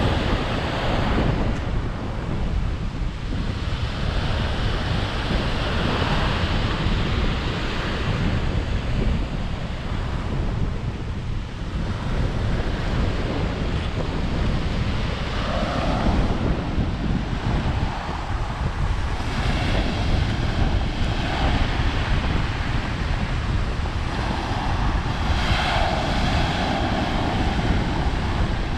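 Ocean waves breaking and washing up the shore in repeated surges, with strong wind buffeting the microphone.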